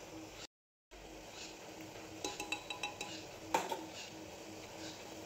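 A steel spoon tapping and clinking against the rim of an aluminium pressure cooker. A quick run of ringing taps comes a little after two seconds in, and one louder clink follows at about three and a half seconds.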